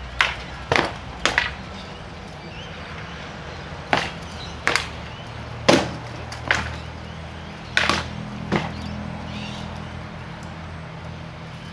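Rattan swords striking shields and armour in heavy-combat sparring: about nine sharp cracks, in quick groups of two or three.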